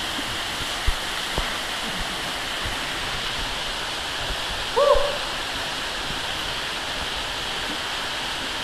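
Waterfall pouring into a rock pool: a steady, even rushing of falling water. About five seconds in there is one short call that rises and falls.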